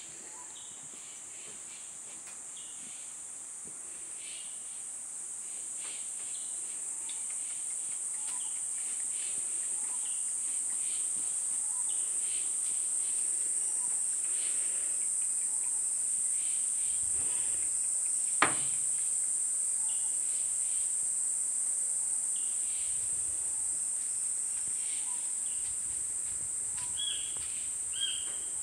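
Insects droning with a steady high-pitched buzz that grows louder over the first dozen seconds. Scattered short high chirps run through it, with a single sharp click a little past halfway and a run of short, evenly repeated chirps near the end.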